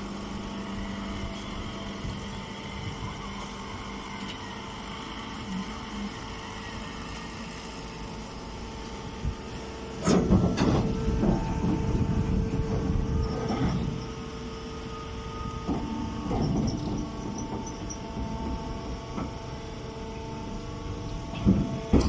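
Hydraulic straw baler running with a steady hum. A louder, rougher stretch of noise comes about halfway through and lasts a few seconds, and a shorter one follows a little later.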